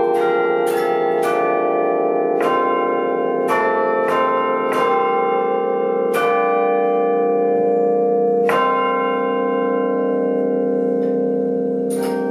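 Bells struck one after another, about a dozen strikes at uneven spacing, each note ringing on and overlapping the next.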